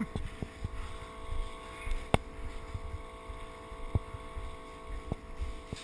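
Low rumble of movement and wind on a body-worn camera's microphone, with a few scattered sharp clicks and taps, the loudest about two seconds in.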